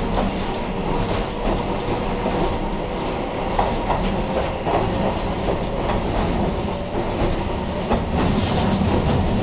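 Tosa Electric Railway streetcar running along its track, heard from the driver's cab: the steady hum of its nose-suspended traction motors and gearing, with irregular clicks from the wheels over the rails. The low hum grows louder near the end.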